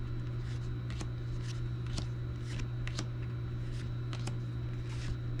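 Disney Lorcana trading cards being flipped through one at a time, a crisp card slide or snap about twice a second, over a steady low hum.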